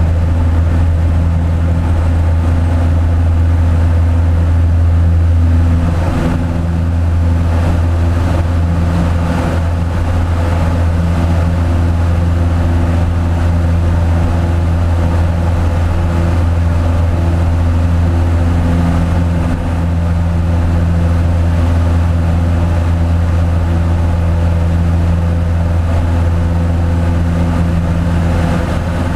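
Light biplane's piston engine and propeller at takeoff power, a loud steady low drone with rushing air, through the takeoff roll and climb-out. The drone shifts slightly about six seconds in.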